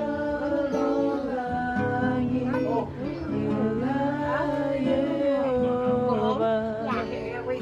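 Singing over acoustic guitar: a slow worship song, with the voices holding and bending long notes over steady chords.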